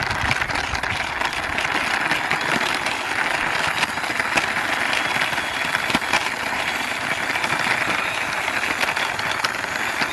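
Plastic wheels of a toy double-decker bus rolling along a rough concrete wall under a pushing hand: a steady rolling noise with a few small clicks.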